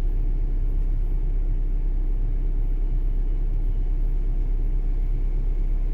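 Steady low rumble inside the cabin of an Audi Q5, with no clear change or distinct events.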